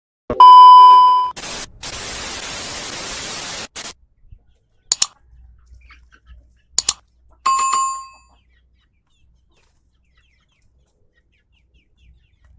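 Edited-in sound effects: a loud bell-like ding just after the start, then about two seconds of steady hiss, two sharp double clicks, and a second, fading ding a little before the halfway point; silent after that.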